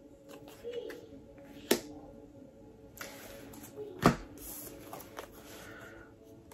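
Tarot cards being handled, with light rustling and small clicks and two sharp card slaps about two and a half seconds apart, over faint soft background music.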